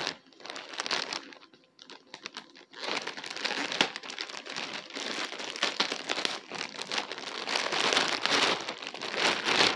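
Clear plastic packaging bag crinkling and rustling as it is handled and opened, in irregular bouts with a short lull about two seconds in.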